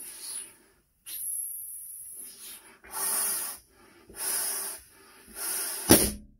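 A 14-inch Tuftex latex balloon being blown up by mouth in about five puffs of breath, then bursting with one sharp, loud pop near the end.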